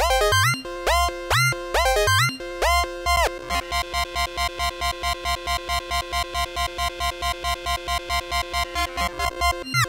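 Roland TB-3 bass synthesizer playing a built-in sequenced pattern. For the first few seconds the notes swoop up and down through a resonant filter. From about three and a half seconds in, it plays a fast, even run of short repeated notes, and the swooping notes come back right at the end.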